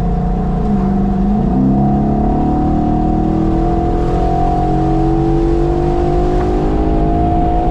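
A 2011 Mustang GT's 5.0-litre V8 running through Borla Pro XS mufflers under acceleration. Its note dips and jumps about a second and a half in, then climbs steadily.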